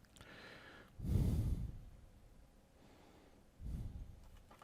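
A person breathing close to the microphone: two heavy breaths, about a second in and again near the end.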